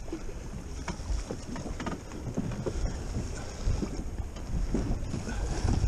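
Wind buffeting the microphone in uneven gusts, with a few light clicks and knocks from handling the fishing rod and reel.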